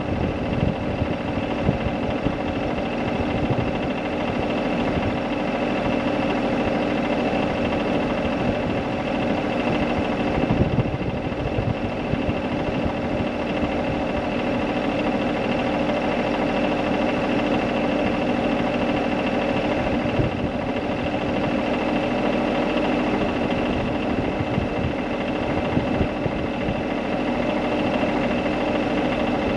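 An engine running steadily at an unchanging speed, with a constant hum and no revving.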